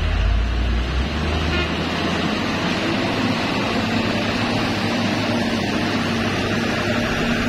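Diesel engine and tyres of a Mitsubishi tanker truck passing close by on a muddy dirt road. A deep rumble is strongest for about the first second and a half, then gives way to a steadier hum from the line of trucks following behind.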